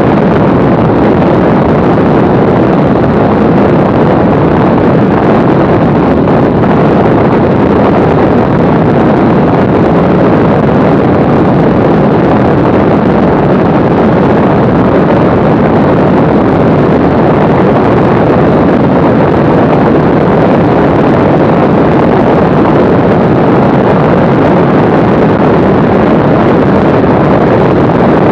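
Steady, loud rush of airflow on the microphone mixed with the engine noise of a Mooney M20C single-engine light aircraft in flight, descending on approach to land.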